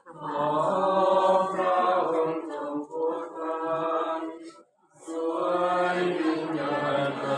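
A congregation of mourners singing together unaccompanied, a chant-like funeral hymn, with a short pause a little after halfway through before the voices resume.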